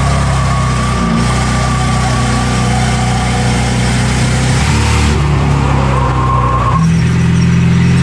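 Ford Crown Victoria Police Interceptor V8 race car engine running hard, its pitch stepping down and back up a few times as the throttle lifts and reopens.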